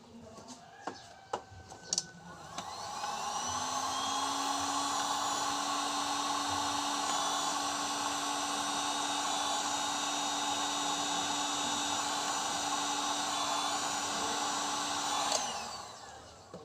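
A small handheld electric motor tool spins up a couple of seconds in with a rising whine, runs at a steady speed for about twelve seconds, then winds down. A few light clicks come before it starts.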